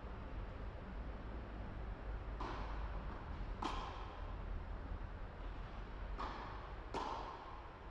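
Four sharp hits of a singles racket-sport rally on an indoor court, in two pairs about a second apart, each ringing briefly in the hall. A steady low hum runs underneath.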